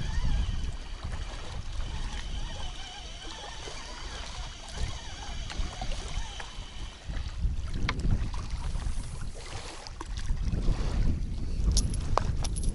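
Wind buffeting the microphone: an uneven low rumble that rises and falls in gusts, strongest near the end, with a few faint clicks.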